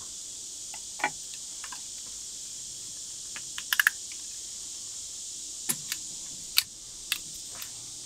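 Scattered sharp metallic clicks and clinks of hand tools, wrenches and sockets being handled and worked on bolts, with a quick run of three or four clicks about four seconds in.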